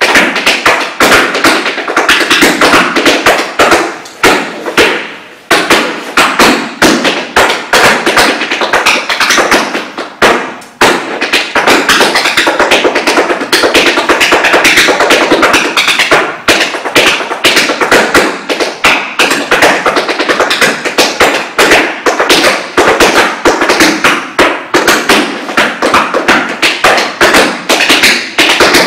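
Tap shoes' metal taps striking a wooden floor in fast, dense rhythmic tap-dance steps, with short breaks about five and eleven seconds in.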